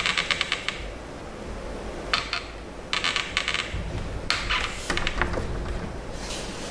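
Whiteboard duster rubbing across the board in four brisk wiping strokes, each about half a second long, with a fainter fifth stroke near the end.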